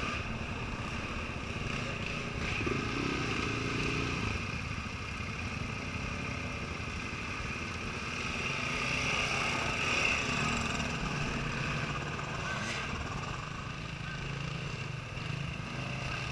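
Dirt bike engines running steadily at low revs, swelling briefly about ten seconds in.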